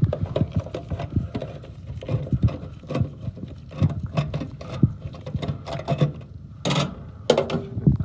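Screwdriver working a screw on the sheet-metal bracket at the gas valve of an Intertherm mobile home furnace: irregular small metal clicks, taps and scrapes, with two louder scrapes near the end.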